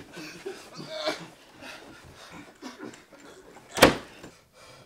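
A single loud, sharp bang about four seconds in, after soft rustling and breathing sounds.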